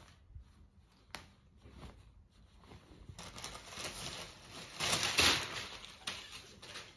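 Rustling and swishing of printed suit fabric being unfolded and spread out by hand, loudest from about three to six seconds in, with a single sharp click about a second in.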